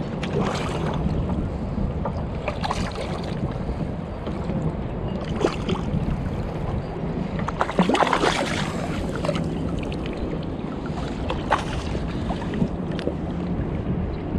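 Wind rumbling on the microphone over a kayak on the sea, with irregular splashes and sloshes of water against the boat.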